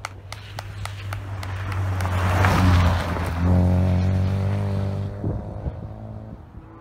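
Rally car passing at speed: engine and tyre noise build to a peak about two and a half seconds in. The engine then holds a steady note as the car drives away, fading out near the end.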